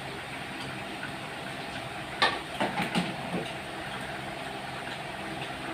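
A few sharp clunks of plastic pipe and fittings being handled against the pump, about two to three and a half seconds in, over a steady mechanical hum.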